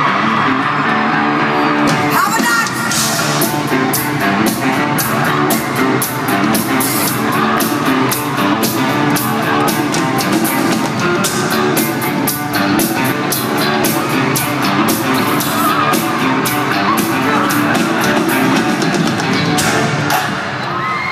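Live rock band playing in an arena, heard from among the crowd: electric guitars and a drum kit, with steady drum hits coming in about two seconds in. High-pitched fan screams are heard at the start.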